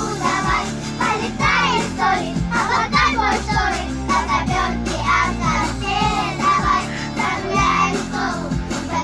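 A child singing a song over an instrumental backing track.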